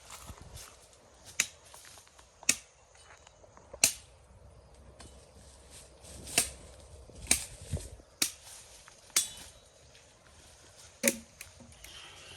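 Panga (machete) chopping: about eight sharp strikes at uneven intervals of roughly a second.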